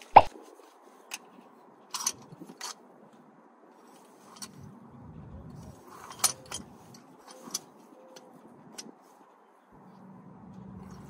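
Scattered metal clicks and clinks of a ratchet and cap-type oil filter wrench being fitted over a new spin-on oil filter and turned to snug it lightly, with a sharp knock just after the start.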